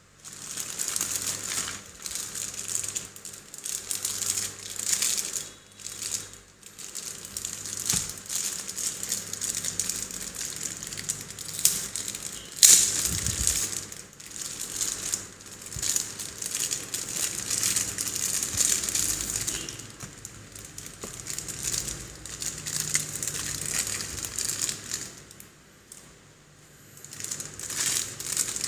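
Clear plastic bags crinkling and rustling as they are handled, in uneven bursts with short lulls. There is one louder knock a little before halfway.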